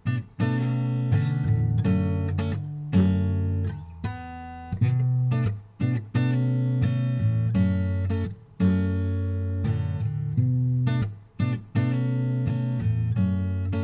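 Steel-string Takamine acoustic guitar played solo, chords sounded and left to ring, with short breaks between phrases. It is heard through a wireless clip-on mic fixed to the guitar body.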